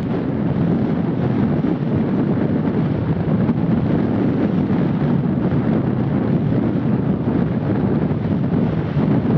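Strong force-6 onshore wind buffeting the microphone in a steady, dense low noise, with rough surf breaking on the shore beneath it.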